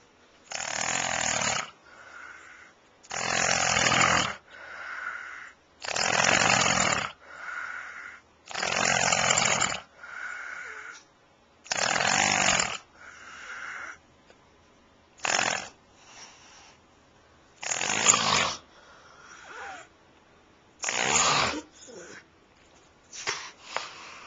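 A man snoring loudly in his sleep, a long snore about every three seconds with a softer breath between. Near the end the snores come shorter and less regular.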